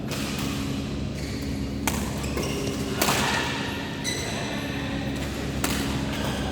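Badminton rackets striking a shuttlecock during a rally: three sharp hits, about 2, 3 and 5.5 seconds in, the middle one loudest, over a steady low hum.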